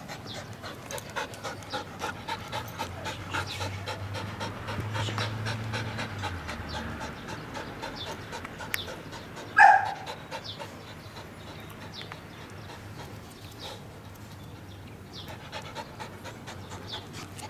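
Flat-coated retriever puppy panting steadily, about two to three breaths a second. A brief loud sound stands out about ten seconds in.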